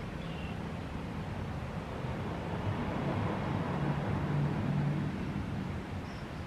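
Low rumble of a passing vehicle that swells about halfway through and then fades, over steady outdoor background noise.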